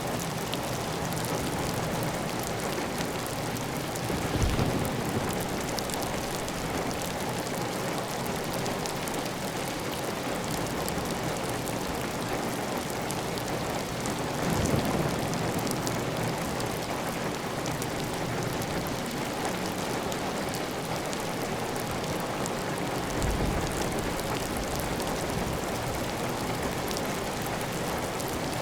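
Heavy, even rain on a clay tile roof, with water running steadily off the roof edge. Three times the sound swells briefly louder and deeper.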